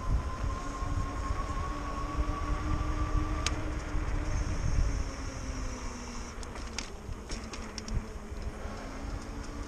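Electric bike's motor whining as it rides, the whine rising slightly in pitch and cutting off about three and a half seconds in, with wind rumbling on the microphone. A few light clicks come near the end.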